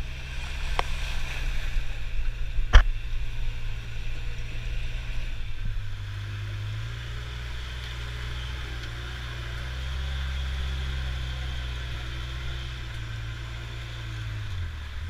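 Polaris Ranger 6x6 side-by-side's engine running at low speed through mud and standing water, with splashing over the first few seconds. A single sharp knock about three seconds in is the loudest sound, then the engine settles into a steady drone.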